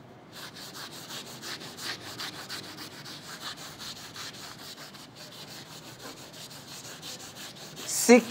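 A blackboard duster wiping chalk off a chalkboard in quick back-and-forth scrubbing strokes, about four or five a second. The scrubbing eases off after about five seconds.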